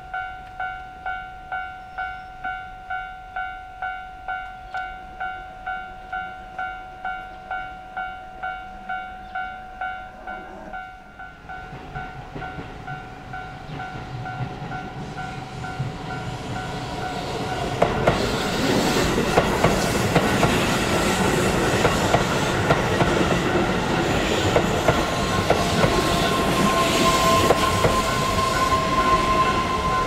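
Railway level-crossing warning bell ringing about two strikes a second, fading out about eleven seconds in as a Keihan electric commuter train approaches. The train's running noise rises and passes close by from about eighteen seconds in, with sharp wheel clacks, and a steady high tone joins near the end.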